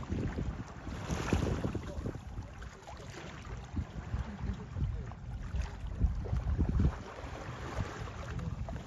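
Wind buffeting the microphone in uneven gusts on a small boat at sea, with water sloshing against the hull.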